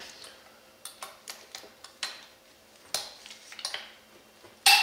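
Pliers clicking and scraping on a steel exhaust tension spring and header pipe, a string of small metal clicks, ending near the end in one loud sharp metallic snap with a short ring as the spring comes free.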